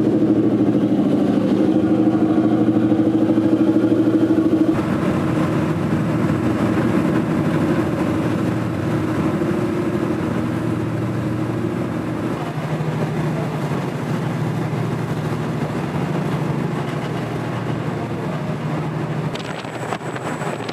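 Passenger ferry's engine running steadily, a low drone with a few held tones; its sound shifts and drops slightly about five seconds in.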